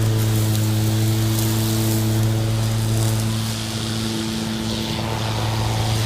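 EGO 56V cordless electric lawn mower running while mowing: a steady low hum with a hiss above it.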